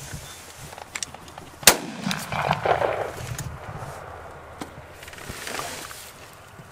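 A single shotgun shot, sharp and loud, about two seconds in, with a short echo trailing after it.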